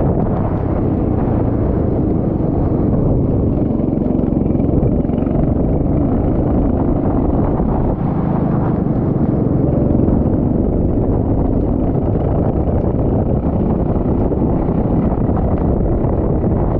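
Racing kart engine running at speed, a steady loud rumble without a break.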